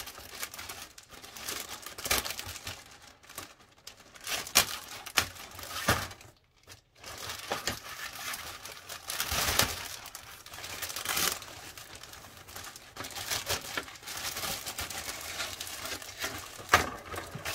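Clear plastic bag crinkling and rustling in an irregular crackle as it is handled and the model kit's plastic sprues are pulled out of it, with a brief pause partway through.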